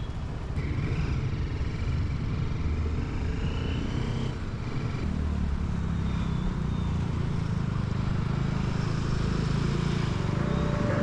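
Motorcycle engine running while riding, a steady low rumble that grows a little louder during the first couple of seconds.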